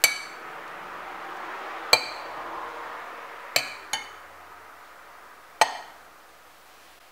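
Metal spoon clinking against a white ceramic soup bowl while scooping up soup, five sharp clinks that each ring briefly, two of them close together about four seconds in.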